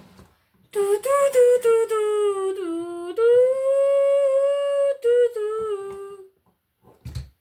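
A child humming a drawn-out wordless tune for about five seconds, sliding up and down between held notes. A short knock follows near the end.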